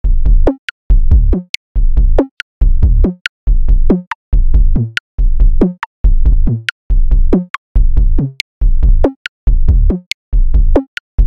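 Electronic music: heavy synth bass hits, each sliding down in pitch and cut off by a short silence, repeating a little more often than once a second with a high click over each.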